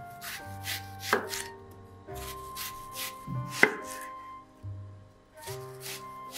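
Santoku knife slicing a peeled onion into rings on a wooden cutting board: crisp cuts in short runs, each ending on the board, with a couple of sharper knocks of the blade on the wood.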